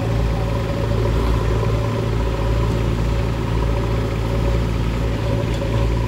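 Diesel engine of a backhoe loader or tractor running steadily at constant speed, without revving.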